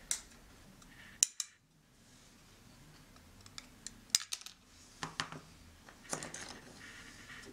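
Small plastic model-kit parts and tools clicking and tapping on a work surface: a handful of sharp clicks, two pairs loudest, with a short scraping sound about six seconds in.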